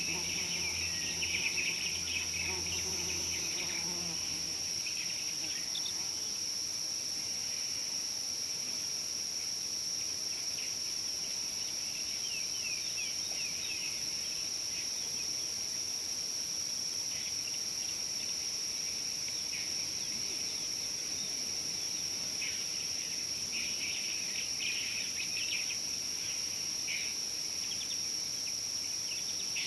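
A steady, high-pitched drone of insects, with short bird chirps scattered through it. A low hum underneath fades out about four seconds in.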